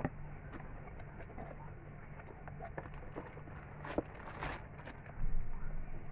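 Handling sounds of a cardboard lamp box being opened by hand: scattered light clicks and scrapes of the flaps, a sharp click about four seconds in, then a rustle and a dull thump as the lamp in its plastic bag is pulled out.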